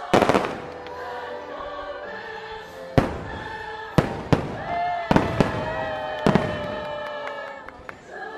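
Fireworks shells bursting close overhead: a quick cluster of sharp bangs right at the start, then single bangs every half second to a second. The fireworks show's music with singing voices plays continuously underneath.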